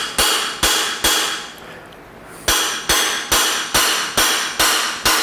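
Hammer and chisel tapping on the cast-iron front plate of a Case tractor diesel engine block: sharp ringing metal strikes, about two and a half a second, with a pause of about a second after the first three. The ring of the taps changes pitch, heard as the sign that the plate, held by a frozen broken bolt and a stud, is starting to break loose.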